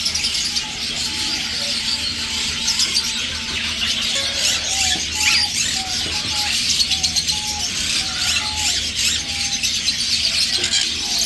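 Many small caged birds chirping and squeaking at once, a dense, unbroken chatter of short high calls.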